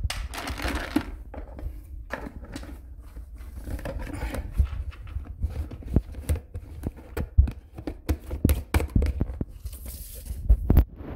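A cat chewing crunchy Temptations cat treats: an irregular run of crisp crunches and clicks, close to the microphone.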